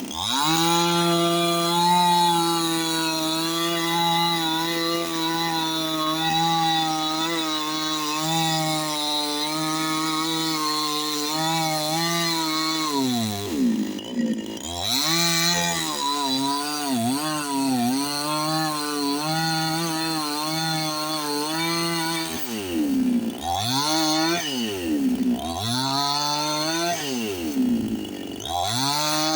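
Two-stroke chainsaw running hard while cutting wood. Its engine note holds steady at first, then sags and picks back up again and again through the second half as the chain loads and frees in the cut.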